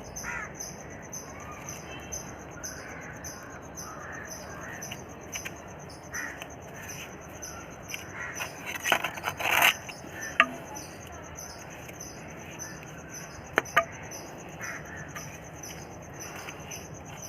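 An insect chirping in a steady high-pitched rhythm of about three pulses a second. Over it come a few short knocks and rustles, the loudest about nine to ten seconds in and again near fourteen seconds.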